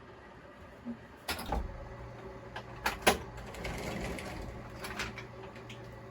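A handful of sharp knocks and clicks, like objects being handled or set down, over a steady low hum. The loudest pair comes about three seconds in.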